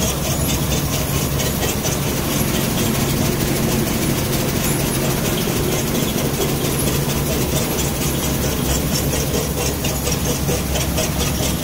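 Seed-cleaning machine running: sieve screens and conveyors giving a steady hum with a fast, even rattle, as safflower seed pours down the chute and over the screens.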